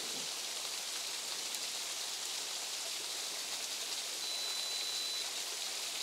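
Small waterfall running at low flow: a steady rush of falling water. About four seconds in, a faint thin high tone sounds for about a second.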